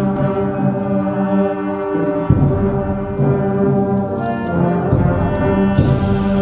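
School concert band playing held chords with the low brass prominent, the harmony shifting about two seconds in and again near five seconds.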